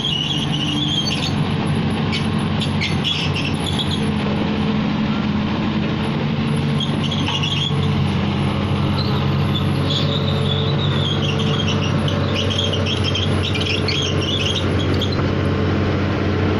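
Excavator diesel engine running steadily, a constant low hum. A scratchy higher sound comes and goes over it.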